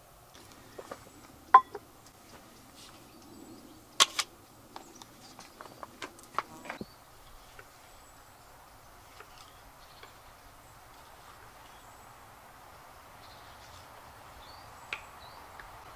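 Quiet woodland ambience with a scatter of sharp clicks and knocks through the first seven seconds, the loudest about a second and a half in and again about four seconds in. After that come only a few faint ticks and short chirps.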